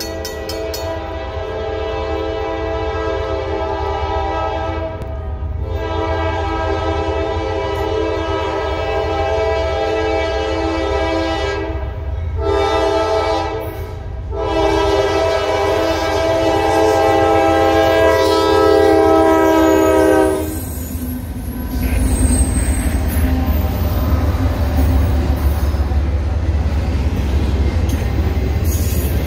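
Norfolk Southern AC44C6M diesel locomotive's air horn blowing the grade-crossing signal: long, long, short, long, the last long blast dipping slightly in pitch as it passes. Then the locomotives and the intermodal container cars roll by with a steady low rumble and rail noise.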